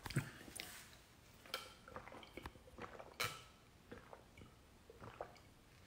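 Faint mouth and drinking sounds: a man sipping and swallowing from a cup, with a few small scattered clicks, the most distinct about a second and a half in and about three seconds in.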